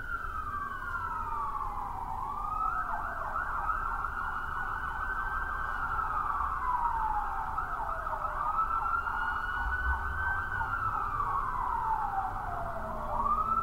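Ambulance siren wailing, slowly rising and falling in pitch about once every five seconds, over a low rumble.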